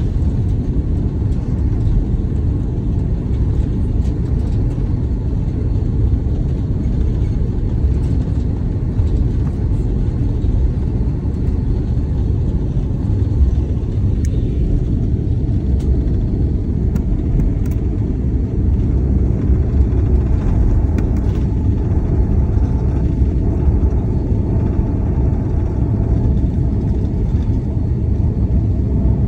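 Steady low rumble of cabin noise inside an Airbus A330 airliner, the engines and airframe droning evenly with no sharp events.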